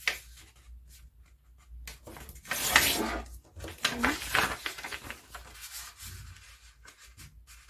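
A folded sheet of paper being opened out and smoothed flat by hand on a table: irregular rustling and crinkling, loudest about three seconds in, dying away toward the end.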